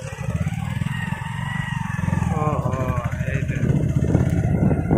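Motorcycle engine running on the move, a steady low beat that grows louder toward the end. A voice is heard faintly in the first few seconds.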